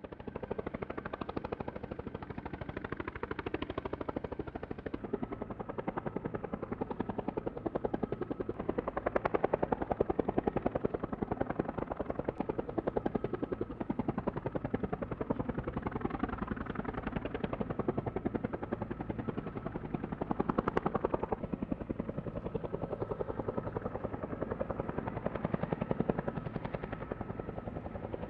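Aircraft running close by, with a fast, even chopping beat that swells and fades several times.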